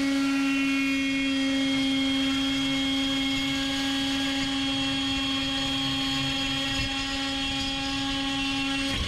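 Handheld high-speed rotary power tool cutting into aluminium structure inside an aircraft wing, running at one steady speed with an even, high whine that stops right at the end.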